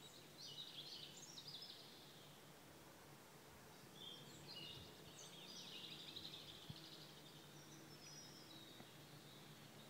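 Faint songbird song: short, high chirping phrases about a second in and again from about four to six seconds, over a quiet, steady background.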